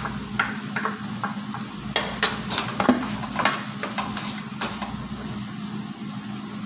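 A cooking utensil knocking and scraping against a nonstick frying pan while stirring diced tomatoes into chopped chicken. The taps come quickly at first and thin out after about five seconds, over a steady low hum.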